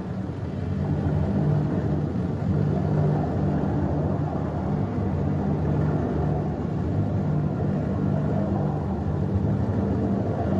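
Steady, loud low rumble with a droning hum from a show's soundtrack sound effects.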